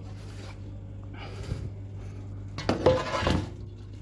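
A metal baking pan being handled at the oven: a short scrape about a second in, then a louder clatter just under three seconds in, over a steady low hum.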